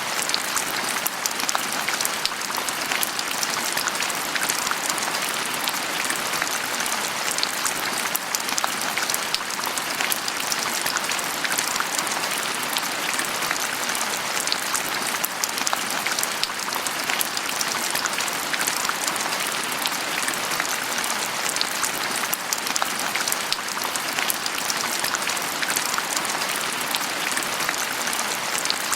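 Steady rain falling on a surface, a dense even patter of many small drop impacts.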